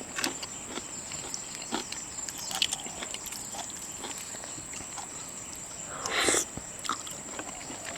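Close-miked eating sounds: scattered small clicks and cracks of chewing and handling shellfish, with one louder, longer noisy sound about six seconds in.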